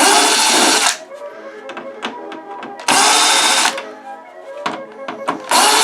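A power drill or driver runs in three short bursts of under a second each, about three seconds apart, with small clicks between, over background music.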